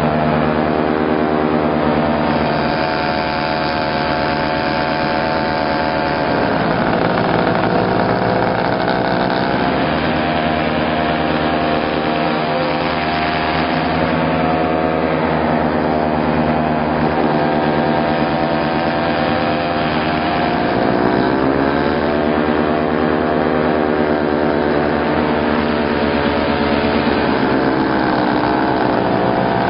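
Paramotor engine and propeller running steadily in flight. The engine note dips and rises again several times as the throttle is eased and opened.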